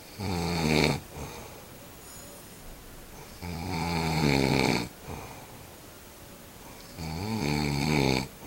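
Snoring: three long snores about three and a half seconds apart, the middle one the longest.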